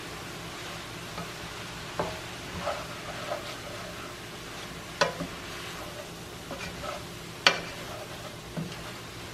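Shredded cabbage and sausage sizzling in a stainless steel skillet while being stirred with a spoon. The spoon scrapes and knocks against the pan several times.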